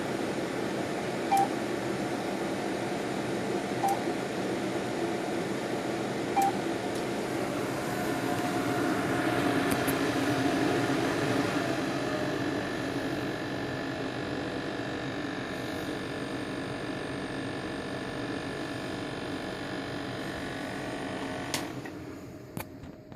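Palomar StarLux 300 laser system running with a steady fan-and-pump hum, giving a short beep about every two and a half seconds, three times. The hum swells for a few seconds midway. A click near the end is followed by the hum dropping away.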